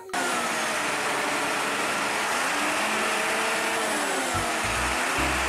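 Cement mixer truck running: a steady whooshing mechanical noise with faint tones that waver slowly in pitch, and low rumbling bumps in the last second or so.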